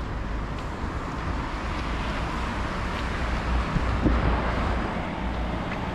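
Outdoor street ambience: a steady haze of general noise with a low rumble of wind on the microphone.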